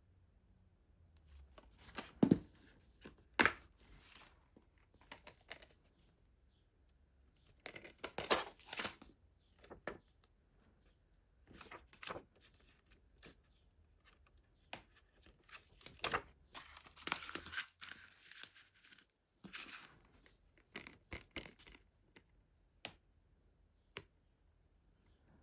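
Plastic shrink-wrap being torn and crinkled off a DVD case, in irregular bursts of crackling with sharp clicks, the loudest in the first few seconds.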